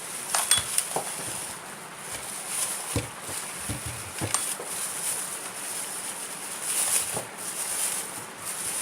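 Scattered light clicks, clinks and knocks of small hard objects being handled, at irregular intervals over a steady hiss.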